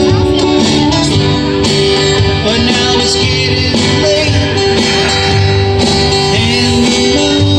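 Two acoustic guitars strummed together in a country-style song, with a man singing over them through a PA.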